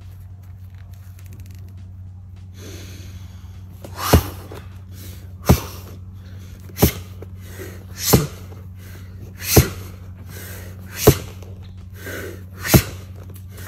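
Gloved punches landing on padding wrapped around a tree trunk: seven loud thumps, one roughly every one and a half seconds, starting about four seconds in, each with a forceful exhale. A steady low hum sits underneath.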